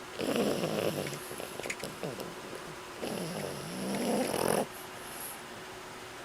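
Sleeping breaths of a young pet, three and a half months old: two long, slightly raspy breaths about three seconds apart, the second cutting off abruptly. It is sleep breathing, not yet snoring.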